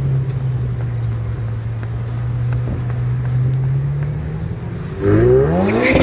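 Supercar engine idling steadily, then about five seconds in it revs up hard as the car pulls away, the pitch climbing quickly.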